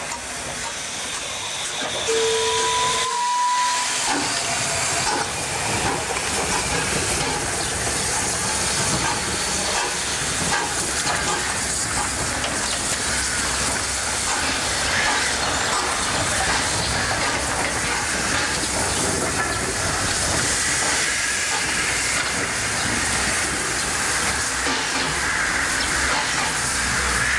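Small steam tank locomotive gives one short whistle about two seconds in. This is followed by a steady hiss of steam as it runs along the track.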